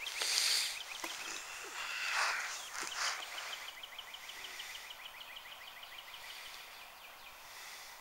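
A small songbird's trill: a quick run of short, dry, down-slurred notes, about eight to ten a second, that carries on for about four seconds before stopping near the end. Over the first three seconds a few bursts of rustling are louder than the bird.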